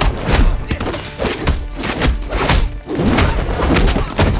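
Studio fight sound effects: a rapid series of hard punch and body-hit impacts with deep thuds, several a second, over action music.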